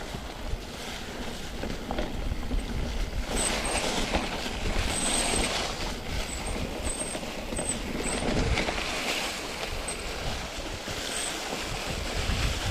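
Mountain bike rolling down a rough, slippery dirt trail: tyre noise, rattling and wind on the microphone, with brief high squeaks repeated through the middle.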